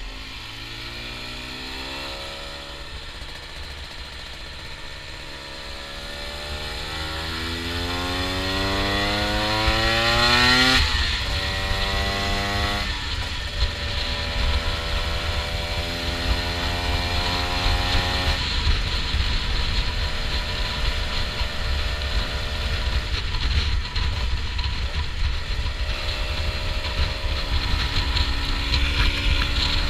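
Honda NSR125's two-stroke single-cylinder engine under way, revs climbing in a long pull, dropping with an upshift about 11 seconds in and again about two seconds later, then running at fairly steady revs. A low wind rumble runs underneath.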